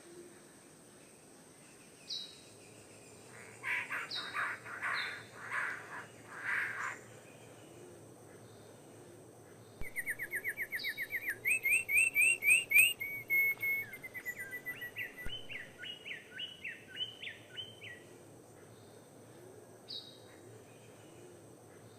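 A small bird calling and singing: a few harsh chattering calls a few seconds in, then about halfway through a fast trill of rapidly repeated notes, followed by looser repeated notes and single short high chirps.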